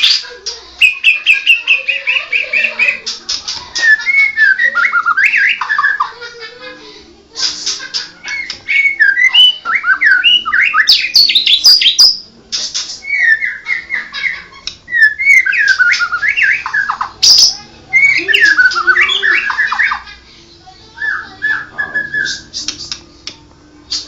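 White-rumped shama singing: rapid, varied phrases of loud whistles and chattering notes, with brief pauses between bouts.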